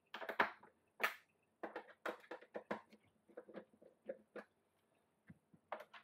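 Torx screwdriver driving screws into a dishwasher's stainless steel inner door panel by hand: irregular light clicks and scrapes of the bit and screws on sheet metal.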